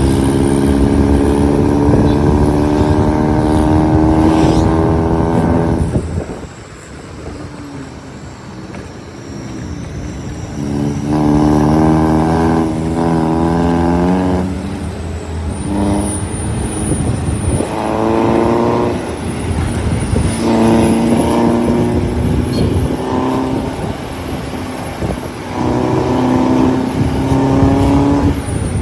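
Diesel vehicle engines working hard on a mountain road. The note rises and falls, drops away about six seconds in, then comes back in spells broken by short gaps, as with gear changes or vehicles passing one after another.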